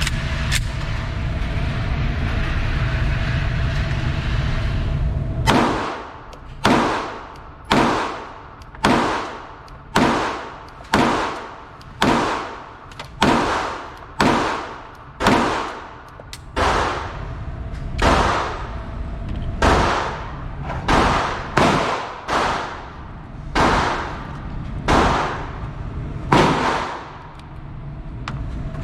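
A steady rumbling noise, then from about five seconds in a long string of gunshots at an even pace of about one a second, each fading out quickly.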